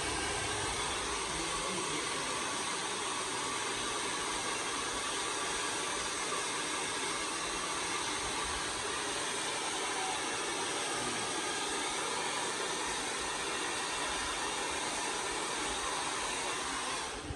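Handheld hair dryer running steadily, blowing a beard dry; it switches off near the end.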